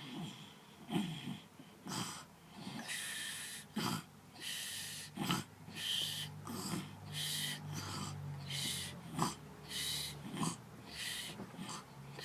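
Noisy, wheezy breathing: about a dozen short hissing breaths in a row, with a few soft knocks between them.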